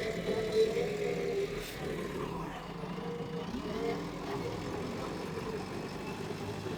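JCB excavator's diesel engine running, its pitch shifting during the first second and a half, then settling into a steady drone.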